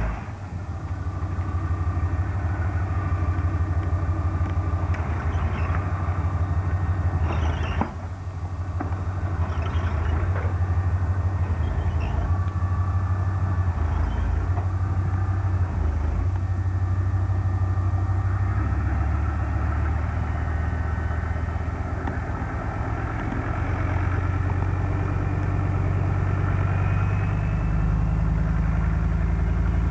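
Diesel engine of a tracked armoured recovery vehicle running with a steady low rumble. A sharp click and a brief dip in loudness come about eight seconds in.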